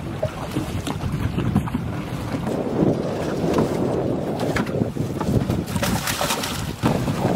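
Wind rumbling on the microphone over choppy lake water, with splashing and knocks growing more frequent in the second half as netted fish thrash and are dip-netted into a plastic tub.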